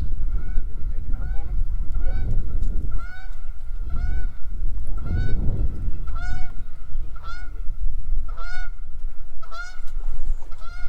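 Goose honking repeatedly, about one call a second, over low outdoor noise.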